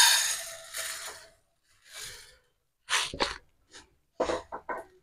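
Split black urad dal poured from a jar into a dry nonstick kadai, the grains pattering onto the pan for about a second and dying away, then several short rustling scrapes as a hand spreads the dal across the pan.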